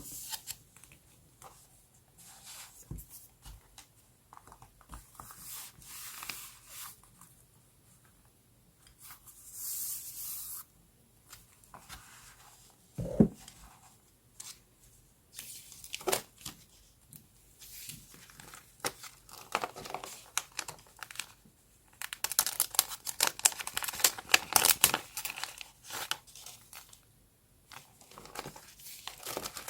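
Paper being handled and torn while decorating a journal: scattered rustles and light taps, one sharp tap near the middle, then several seconds of dense crinkly tearing and crumpling about two-thirds of the way through.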